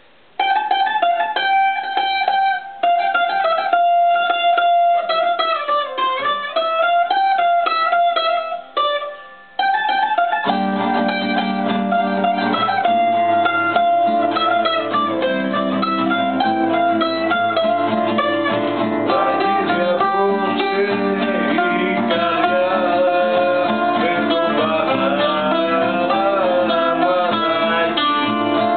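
Greek plucked strings (baglamas, bouzouki and guitar) playing an instrumental song. A high plucked melody plays alone, with short pauses, for about the first ten seconds; then a lower accompaniment and bass notes join in and the music fills out.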